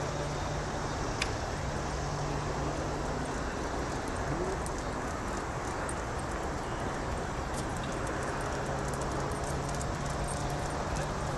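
Steady distant outdoor rumble with a low hum, with faint scattered high chirps and a single sharp click about a second in.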